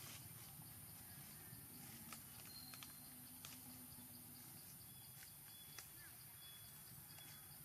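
Near silence: faint outdoor ambience, with a steady high hiss and a few soft, scattered clicks.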